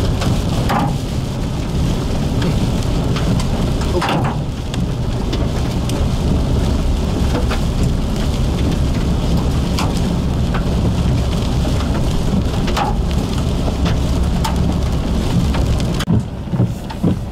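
Heavy rain and hail pelting a moving car, heard from inside the cabin: a dense steady drumming over low tyre and road rumble on the hail-covered pavement, with scattered sharp knocks and squeaks. The noise drops and turns uneven near the end.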